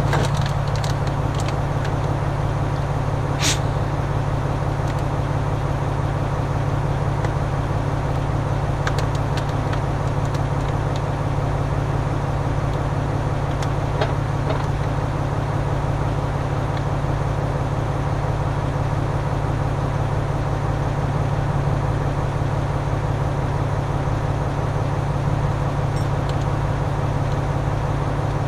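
An engine running steadily at idle. A few brief sharp sounds come through about three and a half seconds in and again around nine and fourteen seconds, as the gas cylinders and regulators are handled.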